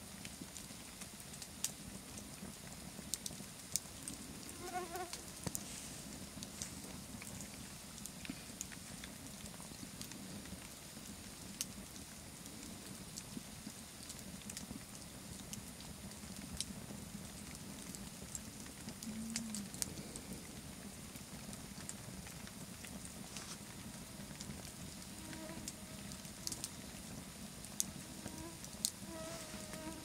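Wood campfire burning, with a steady low rush of flame and scattered sharp crackles and pops from the burning logs.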